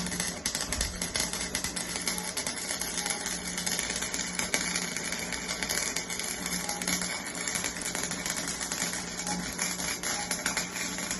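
Electric arc welder running a continuous weld, a dense, steady crackle of fine clicks over a low steady hum.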